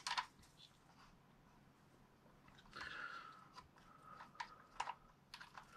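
Faint handling noises of small parts being worked by hand: a few sharp clicks at the start, then scattered crinkly, scraping rustles with short squeaky scrapes in the second half.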